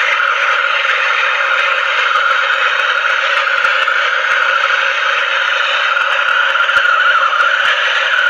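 Handheld MAPP gas torch burning with a steady hiss while it heats a copper refrigerant-pipe joint on a fridge compressor for soldering.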